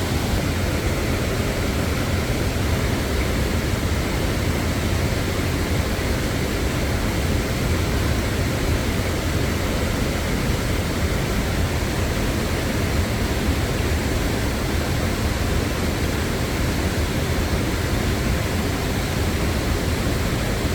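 Steady rushing of a river and waterfall, an even noise with no breaks.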